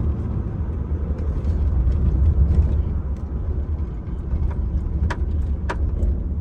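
Steady low road and engine rumble inside a moving truck's cabin, with two short ticks about half a second apart near the end.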